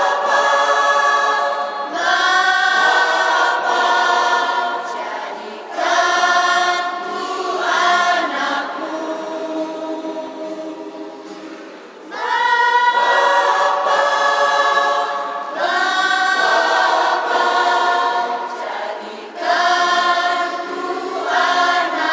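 Mixed choir of men, women and girls singing together in sustained phrases, softening in the middle and swelling back about halfway through.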